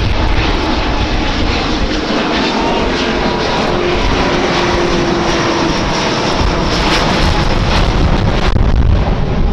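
Airbus A350's Rolls-Royce Trent XWB turbofans running as the airliner flies a slow pass at maximum angle of attack: a loud, steady jet rumble, with a faint steady whine a few seconds in.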